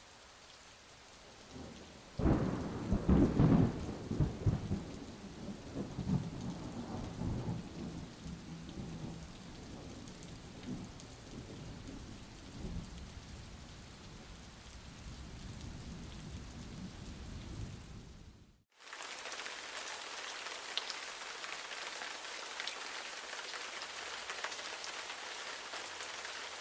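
Thunderstorm: a rumble of thunder breaks about two seconds in and rolls on, slowly dying away, over a bed of rain. After a sudden cut, steady rain hiss takes over and fades out near the end.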